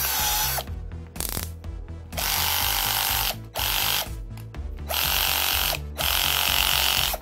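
Aimsak AD414R cordless drill running in repeated trigger bursts of about a second each, motor and gearbox whining with short pauses between. This is the test run after the repair: the motor that would not turn, because a gear beside the 1st/2nd speed shift gear had been assembled backwards, now spins.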